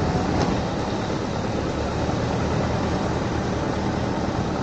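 A vehicle driving along a dirt road: steady engine hum under tyre and wind noise, picked up by a roof-mounted camera.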